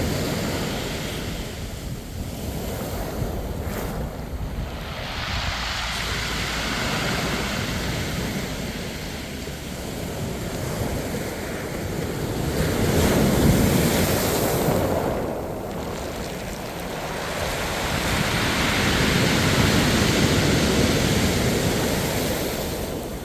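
Mediterranean sea waves breaking and washing up the shore, swelling louder twice in slow surges, with wind buffeting the microphone.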